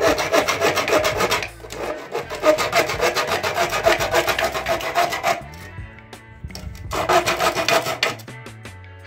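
A hand-held hacksaw blade sawing into the wall of a red plastic electrical back box in quick back-and-forth strokes. It pauses about five seconds in, then saws again briefly near the end.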